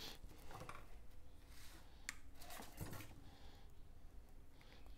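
Quiet handling sounds of stainless steel wire being pulled off a roll and cut with small cutting pliers: a scatter of faint clicks and snips.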